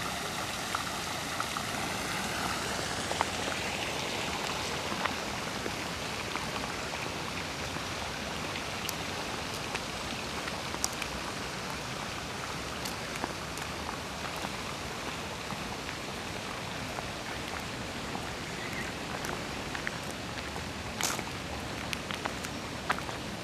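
Steady rain-like hiss of a stone fountain's jets splashing into its basin, with a few sharp clicks scattered through it, more of them near the end.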